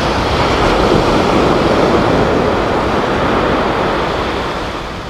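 Surf rushing up the beach, a steady wash of noise that swells and then eases toward the end.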